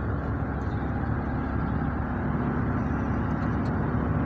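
Steady rumble of a moving road vehicle, engine and road noise running evenly with a low hum.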